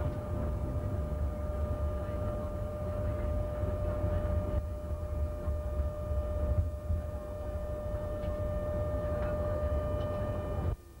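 Tram running along street track, heard from inside the driver's cab: a steady low rumble with a constant high-pitched whine over it. Both drop away suddenly just before the end.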